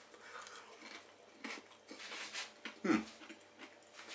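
A person chewing a mouthful of breaded fish cake, with faint crunches and wet mouth clicks and one brief louder mouth sound about three seconds in.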